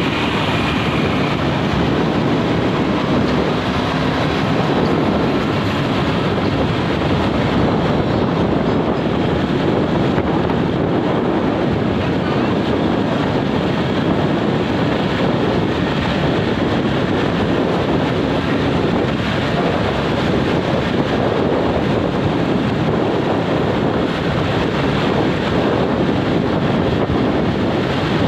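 Steady wind noise on the microphone: a constant rushing with no breaks.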